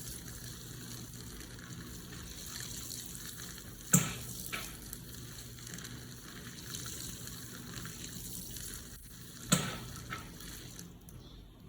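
Electrolux LPE16 washing machine filling with water, a steady rush of inflowing water. A sharp click about four seconds in and again a few seconds later, each followed by a lighter click, and the water sound dies away near the end.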